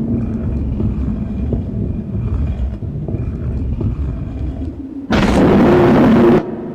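Low rumbling drone with a faint held tone, then about five seconds in a sudden loud hiss that lasts about a second and a half and cuts off abruptly.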